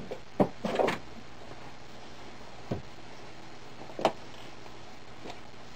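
Several light knocks and clicks as a hand handles a Singer sewing machine in its plastic carrying case: a few close together at first, then single ones a second or more apart, over a steady faint hiss.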